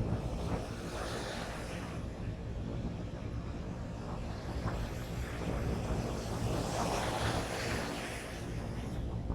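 Surf breaking on a beach, with wind buffeting the microphone. Under a constant low rumble, waves wash in as swells of hiss about a second in and again in the second half.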